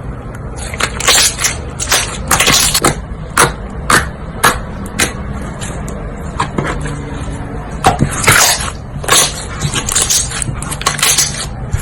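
Slime being poked and squeezed by hand: a run of sharp wet clicks and pops, some in quick clusters, over a steady low hum.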